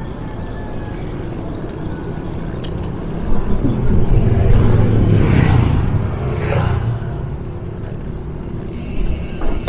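Steady low rumble of road and traffic noise, with a louder vehicle passing that swells and fades through the middle.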